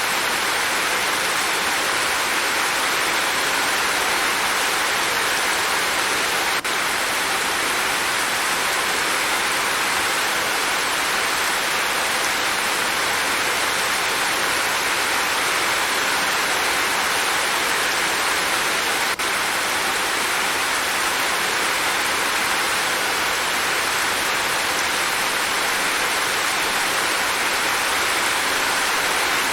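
Steady rain falling, an even hiss that does not change in strength.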